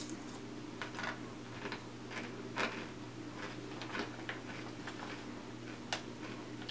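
A person chewing a crunchy sweet potato chip: faint, irregular crunches, about a dozen over several seconds, over a low steady hum.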